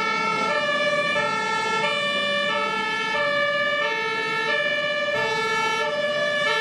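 Fire engine's two-tone siren, a high and a low note alternating about every half second, with a steady higher tone running under it.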